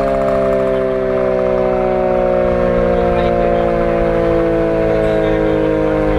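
Vintage WWII air raid siren sounding loud and steady, a chord of several tones sliding slowly down in pitch.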